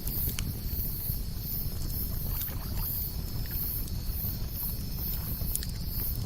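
Campfire crackling, with a few sharp pops, over a steady low rumble of wind or lapping water.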